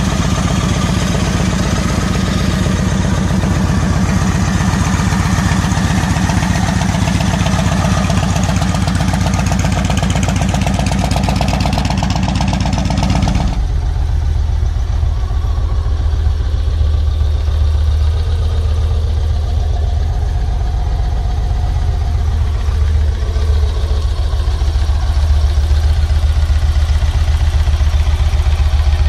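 Yamaha XV1900 cruiser's 1854 cc air-cooled V-twin idling through its exhaust, in two recordings. About halfway through, a cut brings in a second bike whose idle sounds deeper, with most of its sound low in the bass.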